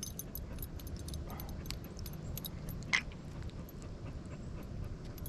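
A dog whines once, a short falling cry about three seconds in, over faint scattered clicking and jingling.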